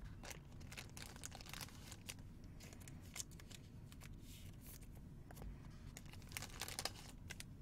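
Faint rustling and crinkling of paper or packaging, with scattered light clicks and taps, as cards and wrappers are handled.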